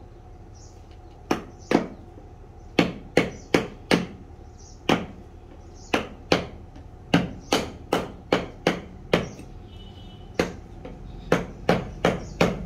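A mallet striking a wood chisel to cut into a block of wood: about twenty sharp knocks in short irregular runs, starting a little over a second in.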